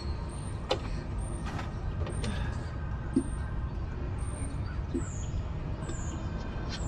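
Steady low engine rumble, like a diesel truck idling, with a few light knocks and clicks from work on the truck.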